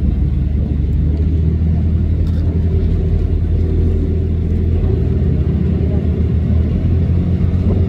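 Tour boat's motors running at a steady pace, a loud, even low drone.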